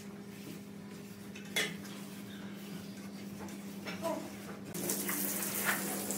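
Steel shovel scraping and scooping dry sand-and-cement mix across a concrete floor, with a sharp metal clank about one and a half seconds in, over a steady hum. In the last second or so a steady hiss of water spraying from a hose takes over.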